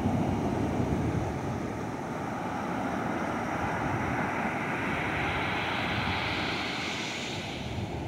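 Ocean surf breaking and washing up the sand, with wind buffeting the microphone. A hiss of rushing water builds through the second half and drops away shortly before the end.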